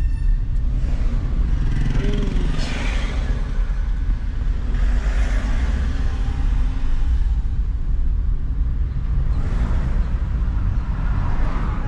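Road noise inside a moving car's cabin: a steady low rumble of engine and tyres, with a few swells of hiss as other traffic goes by.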